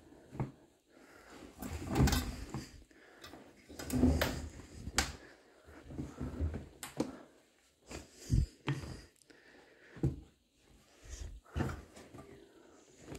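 Laundry being pulled by hand out of a front-loading washing machine drum and dropped into a plastic basin: fabric rustling with soft thumps every second or two.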